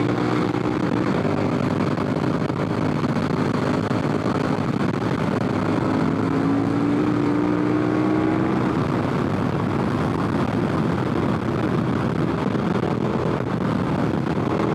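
KTM 1190 Adventure R's V-twin engine running at highway speed, with heavy wind and tyre noise. The engine note climbs a little about six seconds in as the bike accelerates.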